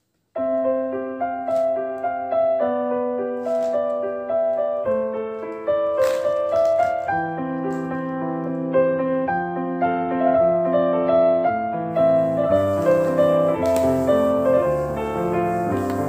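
Background piano music that starts abruptly about half a second in.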